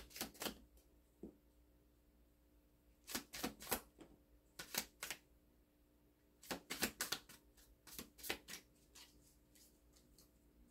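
Tarot cards being shuffled by hand: several short bursts of rapid card clicks, with brief pauses between them.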